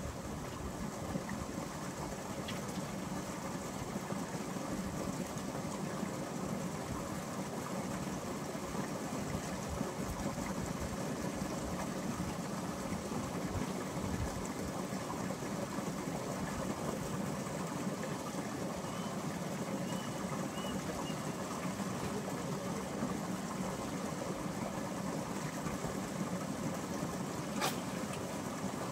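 A steady engine hum running on without change, with one sharp click near the end.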